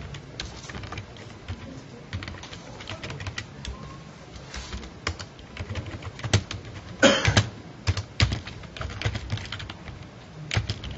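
Computer keyboard typing: a run of irregular key clicks as a line of code is typed, with one brief louder sound about seven seconds in.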